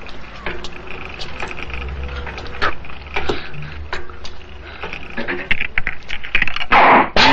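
A string of knocks and clattering impacts, growing busier and louder toward the end, with a loud crash about seven seconds in.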